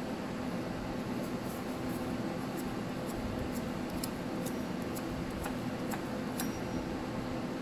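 Husqvarna 450 chainsaw clutch being threaded by hand onto the crankshaft over a new clutch drum: a dozen or so faint, light metallic clicks spread over several seconds, over a steady low hum.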